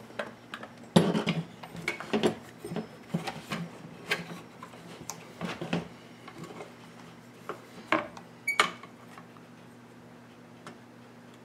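Hard plastic parts of a Husqvarna 562 XP chainsaw knocking and clicking against each other and the saw body as the top handle cover is handled and fitted over the engine: irregular knocks and rattles that die away about nine seconds in.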